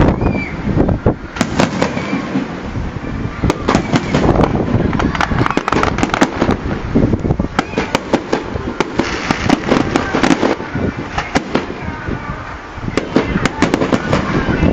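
Fireworks display: rapid cracks and bangs of bursting shells throughout, with crowd voices underneath.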